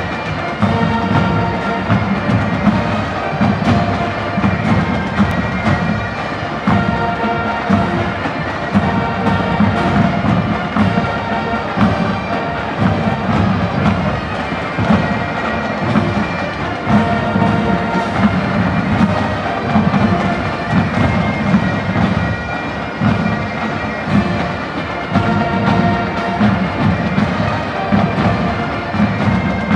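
Military band playing: bagpipes and brass sounding sustained notes together over the steady beat of bass drums.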